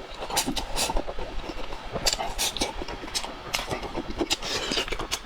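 Close-miked chewing of crisp food: a run of irregular crunches and clicks, several a second.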